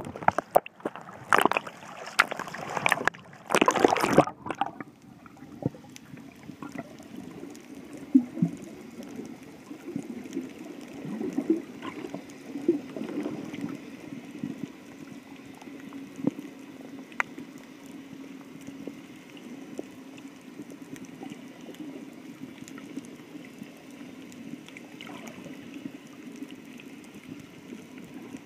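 Water splashing and sloshing against a phone's waterproof case for the first four seconds or so, just under the surface. Then muffled underwater ambience: a steady low hum with scattered faint clicks.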